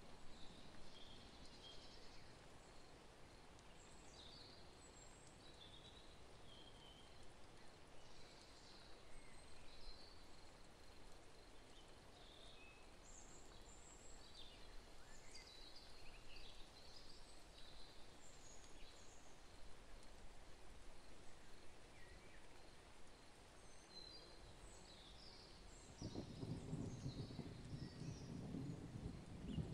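Faint outdoor birdsong: many short, high chirps and whistles from several birds, scattered throughout. Near the end a louder low rushing noise sets in.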